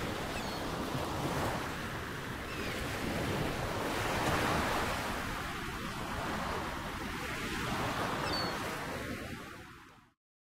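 Steady rushing noise like heavy surf, with no distinct pitch, fading away and stopping near the end.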